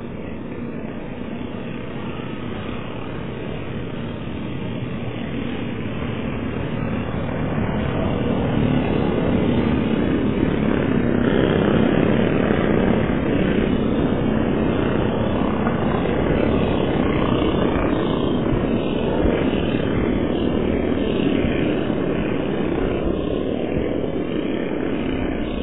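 Engines of a pack of junior off-road race karts running together in a steady, rough drone that grows louder as the pack comes closest, then eases off a little.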